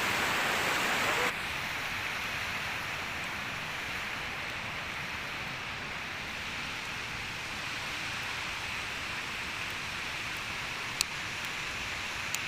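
Steady rushing of a mountain stream, an even hiss of running water that drops abruptly in level a little over a second in. A single sharp click near the end.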